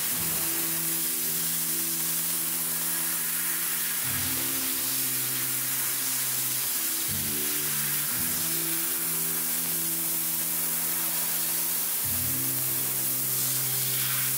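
Slow background music of sustained chords, changing about every four seconds, over a steady hiss and sizzle from a 2 kW fibre laser cutting 4 mm carbon steel sheet, its nitrogen–oxygen gas jet blowing molten metal out of the cut.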